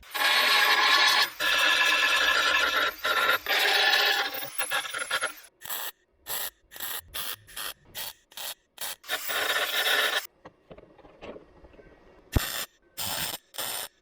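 Welder arcing on thin sheet steel, the crackle coming in short bursts: three runs of a second or two in the first five seconds, a longer run around nine to ten seconds, and quick tacks in between and near the end.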